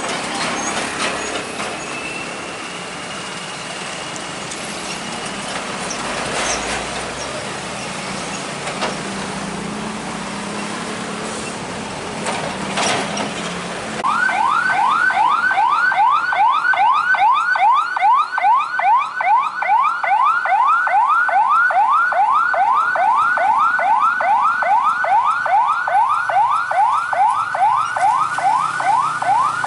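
Heavy trucks and motorbikes drive across a railway level crossing, with a few knocks as wheels cross the rails. About halfway through, the crossing's electronic warning alarm starts suddenly: a loud, steady run of rising whoops, about three a second.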